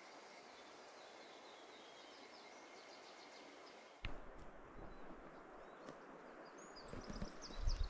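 Quiet woodland ambience with small birds chirping. About four seconds in the background sound changes abruptly, and low thuds come in near the end.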